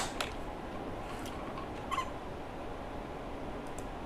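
Steady low hiss from a desk microphone, with a few faint, widely spaced clicks from a computer mouse and keyboard.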